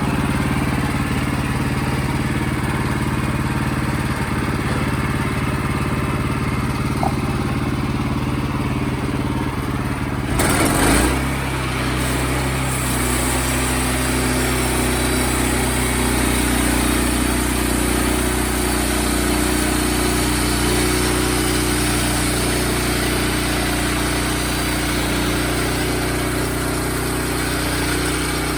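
Wood-Mizer portable sawmill's engine running steadily; about ten seconds in there is a brief rush of noise, after which the engine's tone changes and stays steady.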